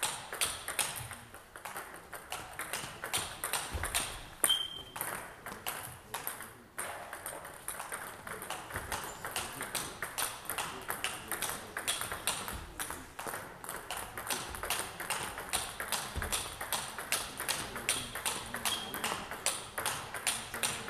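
A table tennis rally: the ball clicks off the bats and the table in a steady run of sharp ticks, about three a second, without a break. There is a brief squeak about four and a half seconds in.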